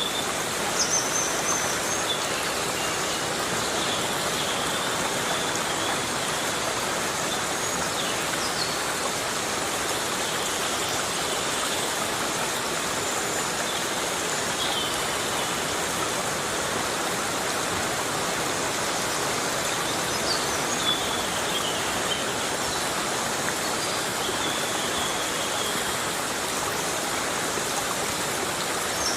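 Heavy rain falling steadily on a forest, an even hiss with no break. A few faint, short high chirps sound now and then over it.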